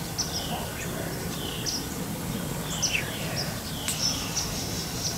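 Small songbirds chirping: a run of short chirps that each drop quickly in pitch, mixed with higher short tweets, over a steady low outdoor rumble.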